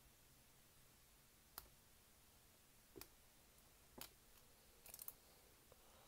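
Faint, sharp clicks of a lock pick working the pin stack of an old-style Federal Super padlock: single clicks about one and a half, three and four seconds in, then a short cluster near five seconds.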